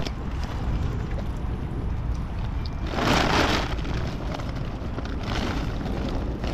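A steady low rumble with a short, loud rush of noise about three seconds in and a fainter one near the end.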